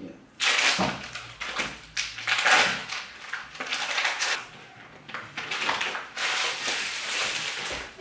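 Plastic food packaging rustling and crinkling in irregular bursts as it is handled and opened.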